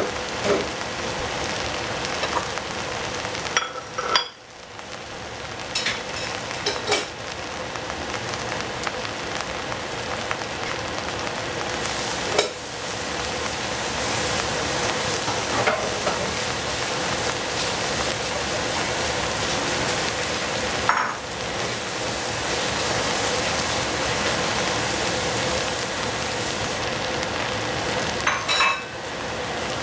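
Food sizzling steadily in a hot pan, stirred with a spatula that knocks and scrapes against the pan every few seconds.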